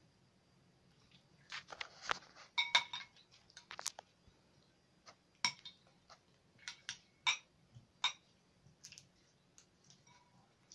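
Metal spoon clinking and scraping against a glass bowl while stirring slime: irregular clinks, a few with a short glassy ring, busiest in the first few seconds.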